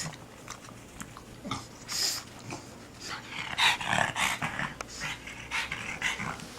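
A pug making a string of short, irregular, noisy sounds, busiest about halfway through.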